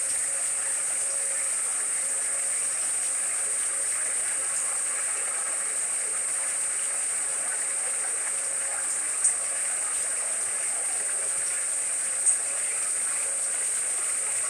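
Steady white noise hiss from a white noise player, even in level with a bright, high edge, broken only by two faint ticks in the second half.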